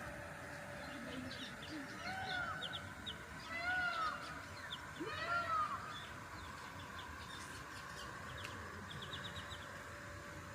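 Birds calling: three rising-and-falling calls about a second and a half apart in the first half, over scattered short high chirps from smaller birds.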